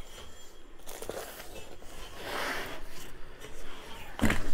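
Scissors snipping through packing tape and a cardboard box, with tape and paper crinkling as it is pulled away, and a sharp knock near the end.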